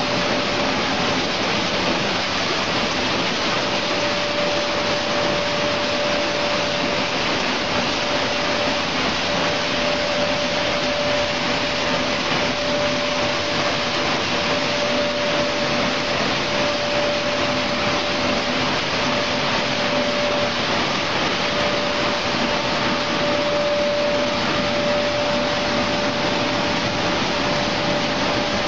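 Raisin processing line machinery running: a steady, even rush of blower fan and electric motor noise with a steady mid-pitched hum in it.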